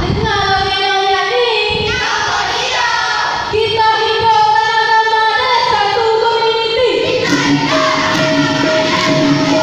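A female dikir barat lead singer sings solo through a microphone and PA in long, held, ornamented phrases. About seven seconds in, a steady sustained backing comes in under her voice.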